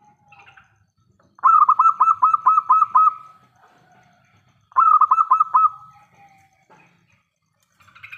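Zebra dove (perkutut) singing its cooing song: a loud phrase of about seven quick repeated notes starting a second and a half in, then a shorter phrase of about four notes near five seconds in.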